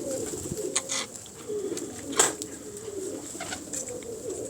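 Domestic pigeons cooing, a low wavering murmur from several birds, with a sharp click about two seconds in.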